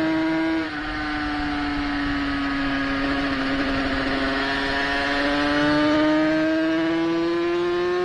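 A 350 racing motorcycle's engine running hard under the rider. The note drops suddenly under a second in, sags slightly, then climbs steadily as the bike pulls out of a corner onto a straight.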